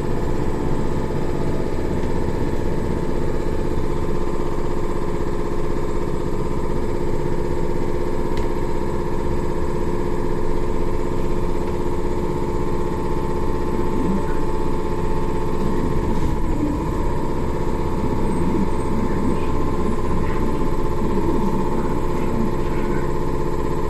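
Inside a BKM 321 trolleybus: a steady electric whine of several held tones over constant rumble, with wavering tones joining about two-thirds of the way through.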